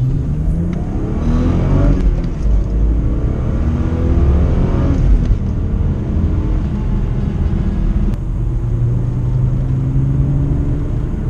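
BMW E36 328i's 2.8-litre straight-six petrol engine accelerating through the gears, heard from inside the cabin. The engine note climbs, drops at a gear change about two seconds in, climbs again and drops at another change about five seconds in, then runs steadily while cruising.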